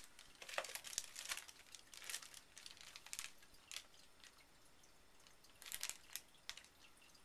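Plastic accessory bags crinkling and rustling as they are handled, in short irregular spells, busiest in the first two seconds and again around six seconds in.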